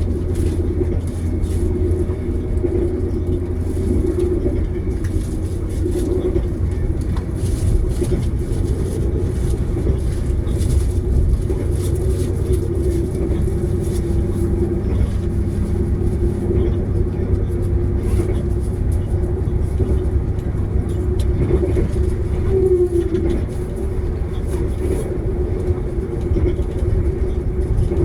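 Passenger train running along the track, heard from inside: a steady low rumble with a constant hum and scattered faint clicks.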